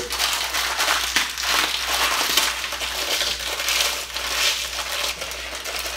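A sleeve of Ritz crackers being crushed by hand inside its wrapper: a continuous crunching of crumbling crackers mixed with the crinkle of the wrapper.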